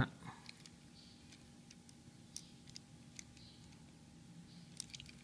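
Faint, scattered clicks of the plastic parts of a Takara Tomy Masterpiece MP-21 Bumblebee figure as its arm is unfolded by hand, with a small cluster of clicks near the end.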